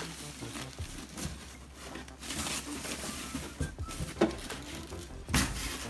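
Foam packing sleeve and plastic wrap rustling and crinkling as a computer monitor is handled and lifted out of its box, with a few sharper crackles, the loudest about five seconds in.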